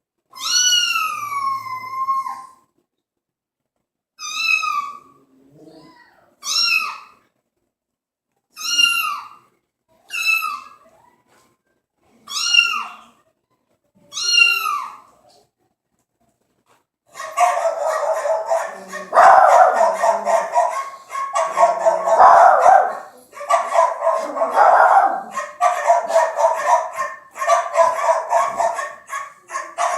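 Recorded cat meow sound effects played through a sound bar: about seven separate meows, the first one long and drawn out. About halfway through, this switches to a recording of dogs barking rapidly without pause.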